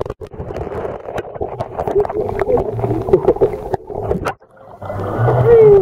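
Muffled underwater sound from a camera submerged in a swimming pool: dull water noise with scattered soft knocks while a dog paddles overhead, and a louder falling tone near the end.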